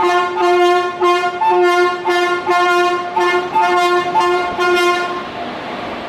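Indian Railways locomotive horn sounding a rapid run of short two-tone blasts, about two a second, until it stops about five seconds in.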